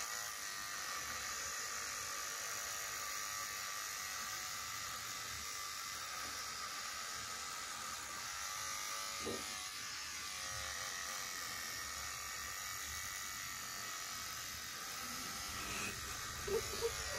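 Electric beard trimmer buzzing steadily as it is run through a full beard. A short nervous laugh comes near the end.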